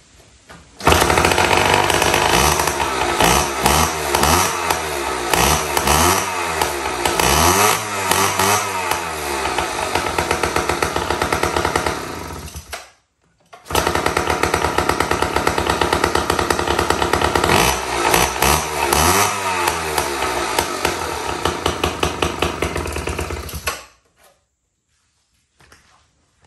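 Small Sears Gamefisher 3 hp two-stroke outboard motor running on a test stand out of the water, its throttle worked up and down so the revs rise and fall. It runs pretty well. The sound breaks off briefly about halfway, comes back at full level, and stops sharply near the end.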